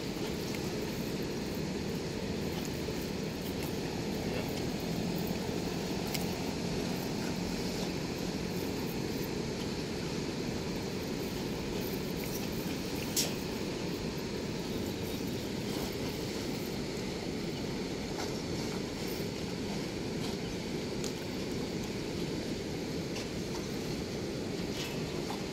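Water rushing steadily through a weir's sluice gate, a constant low rushing noise, with one sharp click about halfway through.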